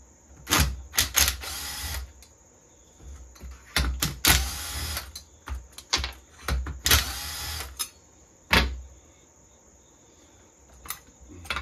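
Cordless power driver spinning out the cylinder bolts of a Stihl MS201TC chainsaw in several short runs, each about half a second to a second long, with pauses between.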